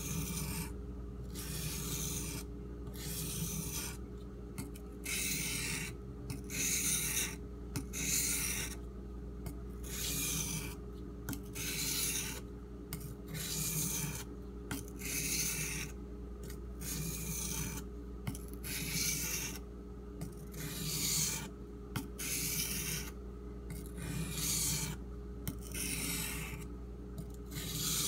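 AUS-8 steel tanto knife blade drawn across a Shapton Pro whetstone under light pressure: an even run of hissing scraping strokes, about one a second, as the edge bevel is ground.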